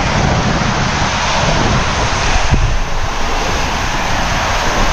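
Raft rushing down an enclosed tube water slide: a loud, steady rush of water and air with a low rumble, and one brief knock about halfway through.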